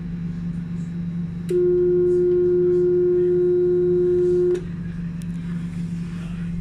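The tram's door-closing warning sounds: one steady electronic tone, about three seconds long, that starts and stops sharply, over the constant low hum of the tram's onboard equipment while it stands at the stop.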